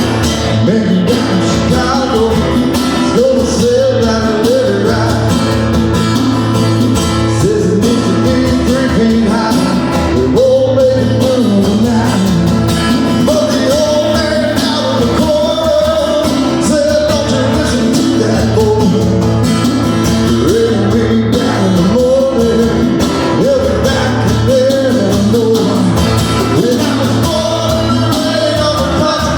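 Music: a song with a singing voice over instrumental backing, playing steadily.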